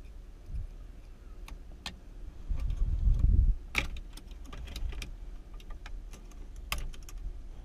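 Scattered small metal clicks and scrapes of a thin screwdriver or pick working a retaining snap ring off the steering shaft of a 1989 Dodge Ramcharger, above its locking plate held compressed by a locking-plate tool. A low rumble comes a little past two seconds in, followed by a sharp click.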